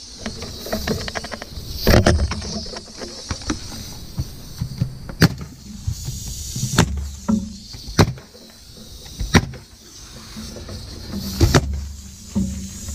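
Pneumatic roofing nailer firing, about seven sharp shots a second or two apart, as it drives nails through felt paper into the roof deck. The gun's air pressure is set a little high.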